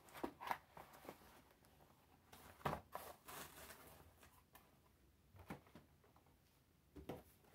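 Faint handling of packaged toys: a few soft knocks and a short rustle of plastic-and-card blister packaging being picked up, turned and set down.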